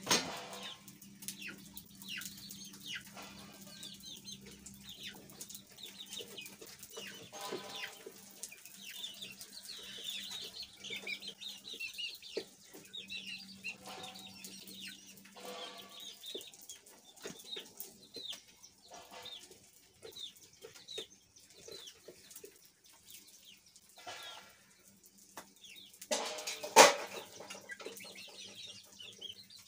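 Chickens clucking and calling close by, in short scattered bursts. A single sharp knock near the end.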